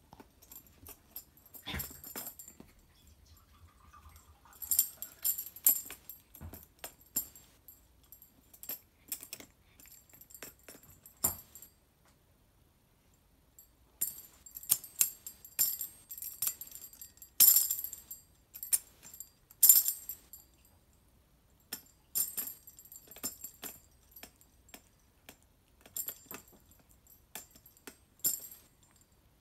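Small plastic tambourine's metal jingles rattling in irregular, uneven bursts as a cat bites and kicks at it, with a quiet stretch of about two seconds midway.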